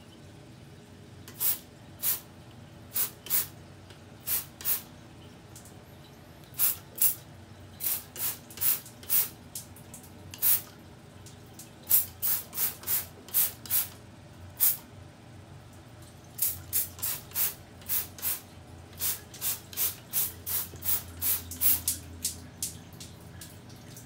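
Many short hissing spray bursts from a nozzle, often two or three in quick succession, over a faint steady low hum.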